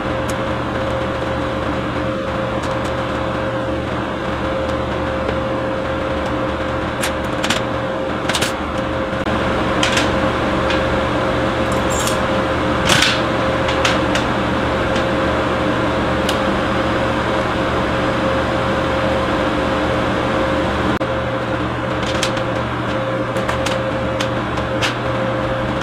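Steady machine hum of shop equipment with a constant tone, with a few light clicks of metal parts being handled.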